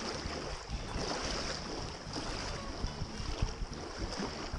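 Wind buffeting the microphone over choppy open water, with small waves lapping.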